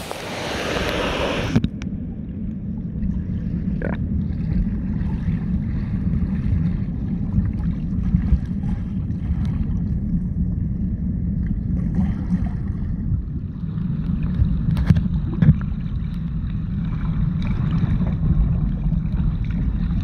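Waterfall's rushing water: a bright, full hiss that cuts off sharply under two seconds in, giving way to a steady low rumble of falling water.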